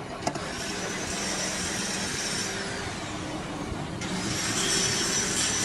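A motor-driven machine running steadily, with a hiss and a high whine; the whine glides down in pitch near the middle, and a louder high whine comes in about four seconds in.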